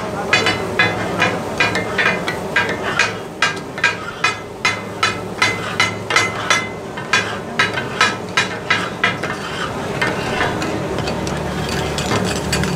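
Taka-tak: metal spatula blades chopping goat offal on a hot flat griddle, clanging against the steel in a fast rhythm of about three strikes a second over steady sizzling. The strikes thin out near the end.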